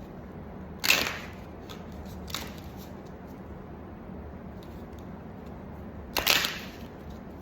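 Two sharp snaps about five seconds apart, with a fainter click between them, from tarot cards being handled.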